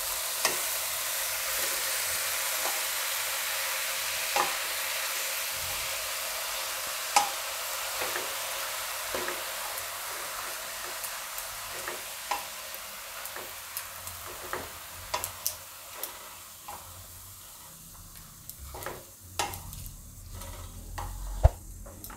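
Chopped spinach sizzling in hot oil and ghee in a kadai while being stirred with a spatula. The sizzle fades gradually, and scattered taps and scrapes of the spatula against the pan come more often near the end.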